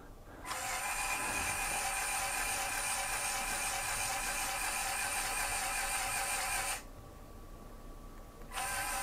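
LEGO Technic Control+ motors and their gear trains whirring steadily as they drive the model excavator's bucket. The whine stops for under two seconds near the end, then starts again.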